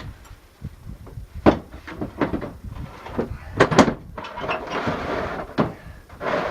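Irregular knocks and thumps with a short scraping rustle about two-thirds of the way through: someone climbing up through a church toward its bell.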